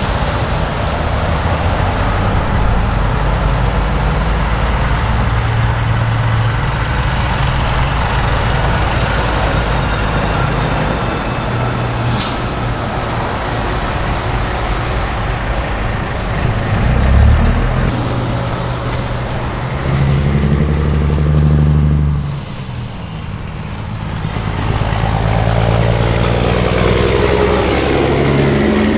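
Diesel semi-truck engines running as the tractor-trailers pull past, with road noise. A brief high hiss about twelve seconds in, and near the end a truck engine rises in pitch as it accelerates away.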